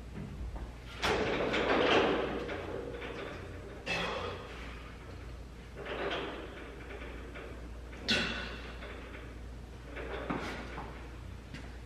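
A man's hard, noisy breathing as he strains through pull-ups late in a set: five sharp breaths about two seconds apart, the first the longest and loudest.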